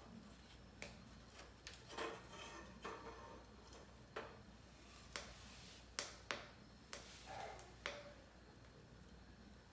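Wood fire crackling faintly: about a dozen irregular sharp pops and snaps, with a few softer rustling crackles between them.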